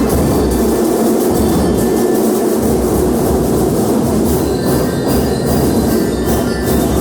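Banda de guerra marching band playing loudly. Drums and cymbals keep an even beat, with ringing metal tones above them.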